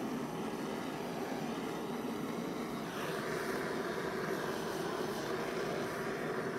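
Small handheld electric air blower running continuously, its motor giving a steady whirring noise as it blows air across wet acrylic paint; about three seconds in the sound turns brighter and a little louder.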